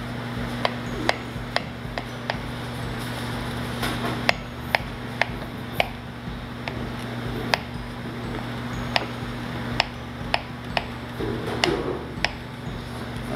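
Paring knife slicing small mushrooms on a cutting board: sharp taps of the blade hitting the board, roughly two a second, somewhat irregular. A steady low hum runs underneath.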